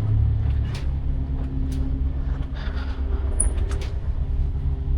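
Steady low engine rumble with a few faint humming tones over it, and a few light clicks and knocks scattered through it.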